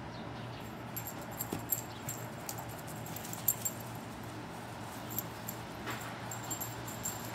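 Pit bull's collar tags jingling in quick, irregular clicks as she runs and plays, over a steady low hum.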